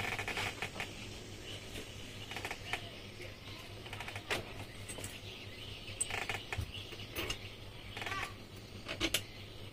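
Scattered light clicks and knocks of metal parts and hand tools being handled on a Yamaha 15 hp outboard's lower unit (gearbox) during assembly.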